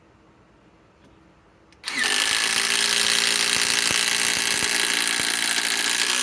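Metabo HPT WH18DDX 18 V subcompact impact driver hammering a 4-inch TimberLOK screw into timber. It starts about two seconds in, runs for about four seconds with a steady whine and rapid hammering, and stops abruptly.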